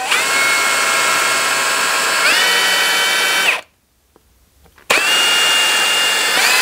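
Power drill with a small bit boring vent holes into a plastic revolver mold for vacuum forming, run twice. The motor whine steps up in pitch partway through the first run. The second run starts about five seconds in and rises in pitch again near the end.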